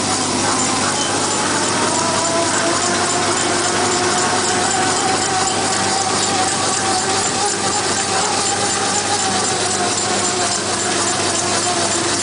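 Hand towel paper machine running steadily, a dense mechanical noise from its rollers with a faint whine that drifts slightly in pitch.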